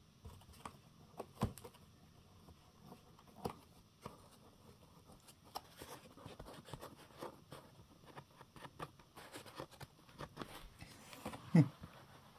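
Fingers scratching and tapping on cardboard to beckon a kitten: scattered light scratches and clicks, with a few sharper taps and a louder thump near the end.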